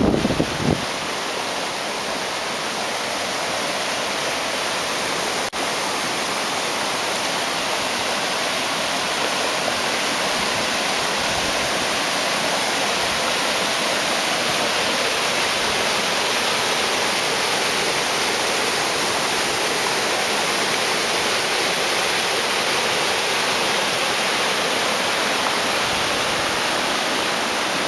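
Canyon waterfall in strong flow after several days of rain: a steady, unbroken rush of falling water, mostly hiss-like with little low rumble.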